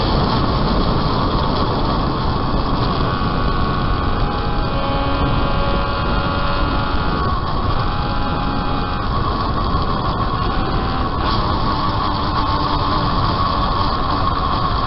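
Home-built three-cylinder engine of a 195cc Gillette special racing motorcycle running hard at racing speed, its note changing pitch a couple of times as the revs and gears change. Heavy wind rumble on the onboard camera sits under it.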